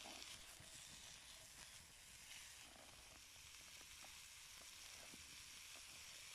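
Diced bacon and butter frying in a black frying pan over an open wood fire: a quiet, steady sizzle with a few small pops.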